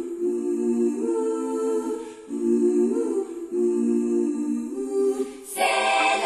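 Music: layered humming voices hold chords that change about once a second. About five and a half seconds in, a fuller, brighter arrangement comes in suddenly.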